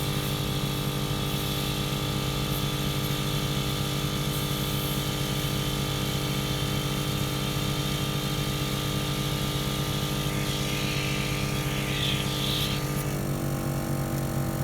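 Smittybilt 2781 12-volt portable air compressor running steadily while inflating a large off-road tire, a loud mechanical drone with a rattle. About thirteen seconds in its note dips slightly.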